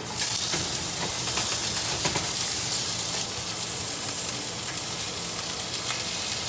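Skinless chicken legs going into a hot, lightly oiled cast-iron skillet: a loud sizzle starts suddenly as they land and keeps on steadily. Light clicks of metal tongs against the pan come through as the pieces are moved.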